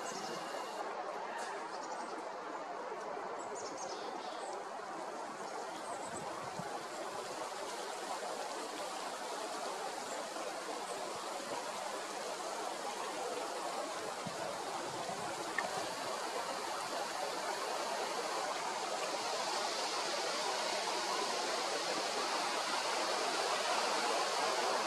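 Steady rushing outdoor background noise that grows slightly louder toward the end, with a few faint high chirps in the first few seconds and a single soft click about fifteen seconds in.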